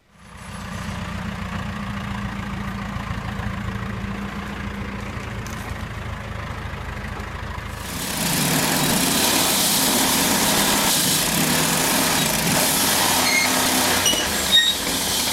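Sawmill engine running steadily. About eight seconds in, a louder, even rushing noise joins it as the saw cuts into a large pine log.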